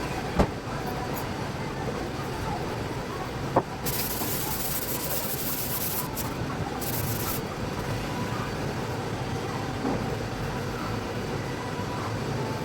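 Two hissing bursts from a paint spray gun, one about two seconds long starting about four seconds in and a shorter one about a second later. They sit over a steady background noise, with a couple of faint knocks before them.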